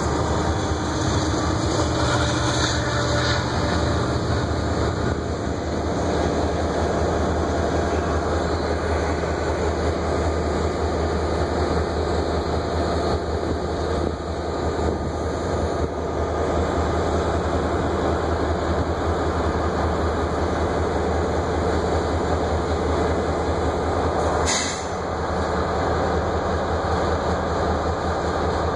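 Diesel-electric locomotives running at close range: HLCX GP38-2's non-turbocharged 16-cylinder EMD two-stroke engine and the coupled unit give a steady low drone, with wheel and rail noise as the consist shoves. A brief sharp sound comes near the end.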